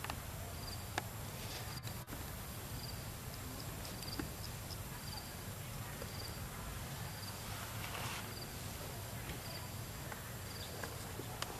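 Outdoor ambience with an insect chirping: a short, high chirp at a steady pitch, repeating about once a second, over a low steady rumble. There are a couple of faint clicks and a brief rustle a little after the middle.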